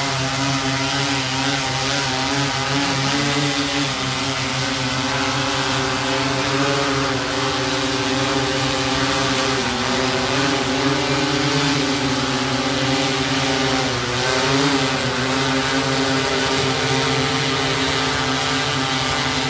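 Large multirotor spraying drone flying low overhead: a steady rotor hum of several layered pitches, dipping and rising slightly a couple of times as it manoeuvres.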